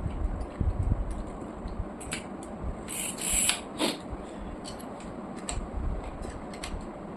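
Irregular light clicks and taps over a low rumble, with a short hiss about three seconds in and a sharper click just after it.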